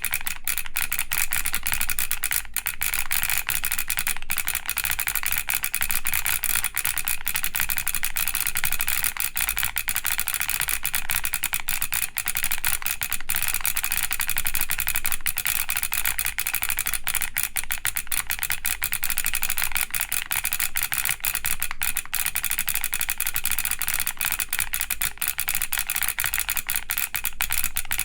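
Continuous fast typing on a G-Square Studio Vintage 60S mechanical keyboard with Vertex V-One switches, a polycarbonate plate and DCS keycaps. Each keypress fires the keyboard's solenoid, which adds a clack of its own to the keystroke. The typing starts suddenly after a quiet moment and goes on without pause.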